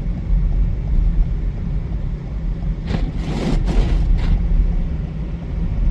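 Steady low rumble of a car's engine and road noise while driving through snow, with a louder hiss swelling for about a second a few seconds in.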